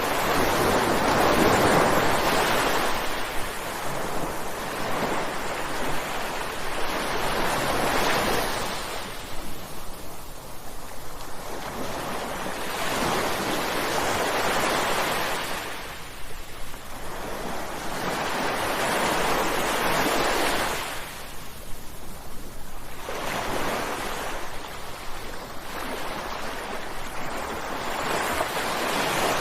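Ocean waves crashing on a shore, rising and falling in a slow rhythm of about one surge every six seconds.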